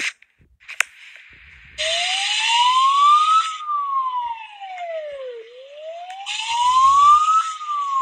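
Civil-defence siren wailing: a single tone that starts about two seconds in, rises over about two seconds, falls over about two and rises again, with a hiss over each rise. It is played back as the Polish alarm signal.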